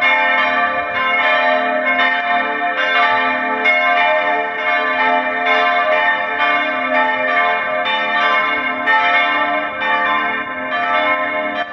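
Peal of bronze church bells of medium-heavy profile, cast by Petit & Edelbrock, swinging and ringing together, their strikes overlapping in a steady, continuous jangle of several pitches.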